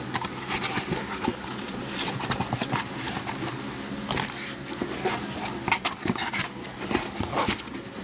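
A cardboard case of hockey card boxes being opened and unpacked: irregular rustling, scraping and knocking of cardboard as the boxes are handled and taken out.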